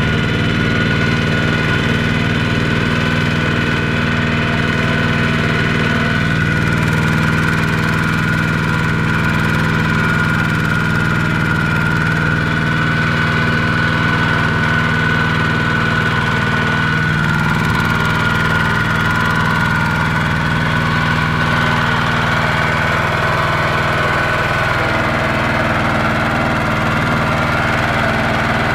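Kubota walking tractor's single-cylinder diesel engine running steadily at an even speed while the tractor pulls a loaded rice trailer through mud.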